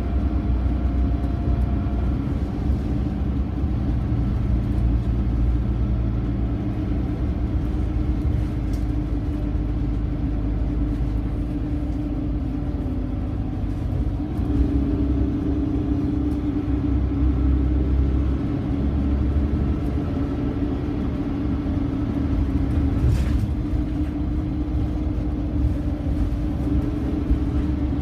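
Scania OmniCity bus's rear-mounted diesel engine running, heard from inside the passenger saloon as a steady low rumble; the engine note changes pitch about halfway through.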